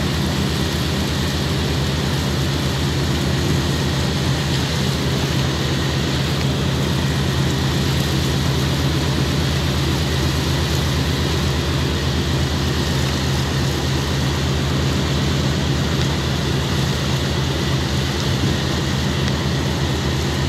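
An engine or motor running steadily: an even, low drone with a fast regular pulse, over a constant hiss.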